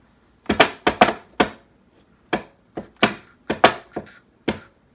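Rolls of fabric tape being picked up and set down, knocking on the cutting mat and against each other: about a dozen sharp, irregular clacks and taps.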